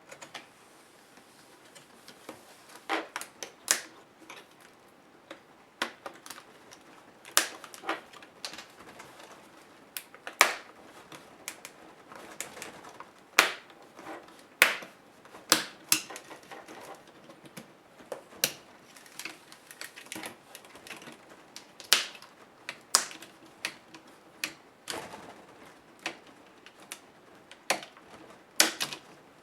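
Irregular sharp clicks and taps of small plastic and metal laptop parts being handled and set down during disassembly, one to three clicks a second with short pauses.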